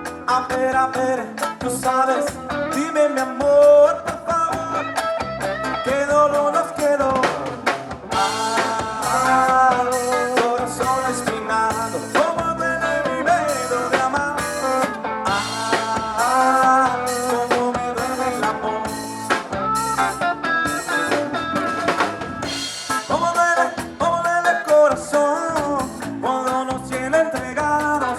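Instrumental music: a melody line over a drum kit beat with snare and bass drum.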